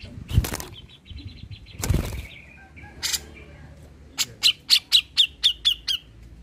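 Grey-cheeked bulbul (cucak jenggot) calling. A quick run of high notes comes in the first two seconds, then about eight loud, sharp down-slurred notes at four to five a second, ending a little before six seconds in. Two short, loud noisy bursts come about half a second and two seconds in.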